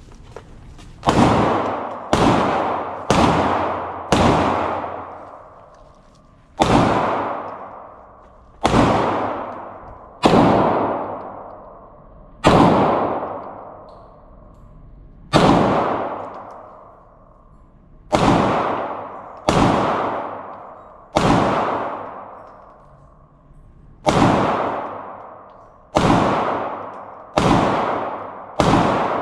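Handgun fired in slow aimed single shots, about twenty in all, spaced one to three seconds apart. Each shot rings out in a long echoing decay.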